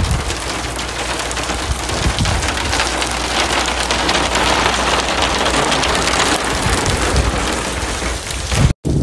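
Heavy rain pouring onto wet pavement and parked cars, a dense steady hiss that cuts out for an instant near the end.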